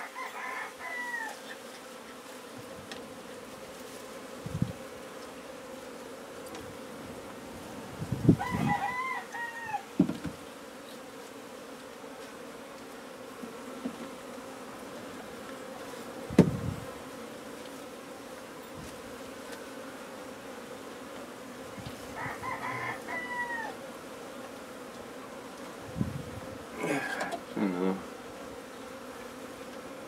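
Honey bees buzzing steadily from an opened colony, with a rooster crowing several times, near the start, about 8 s in and about 22 s in. A few knocks from the comb and wooden frames being handled cut through, the loudest about 16 s in.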